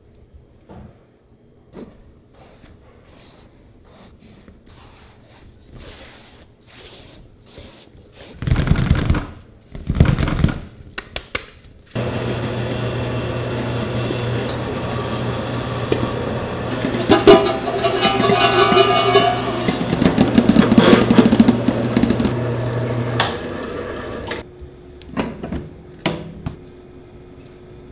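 Large planetary bakery mixer mixing dough. Its motor starts suddenly about twelve seconds in with a steady hum, while scooped flour goes in and the beater clatters around the metal bowl, and it stops about eleven seconds later. Before it starts there are two heavy thuds, and light handling taps follow.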